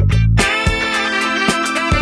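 Background music with a steady beat, led by guitar; the deep bass drops out about half a second in.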